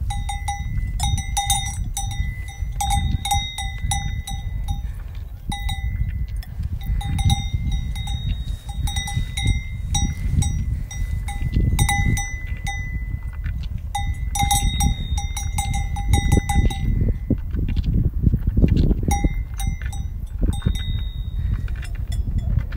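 Cowbells on the collars of young calves clanking irregularly as the calves graze and shift, with a pause of a couple of seconds about three-quarters of the way through before they ring again, over a low rumbling noise.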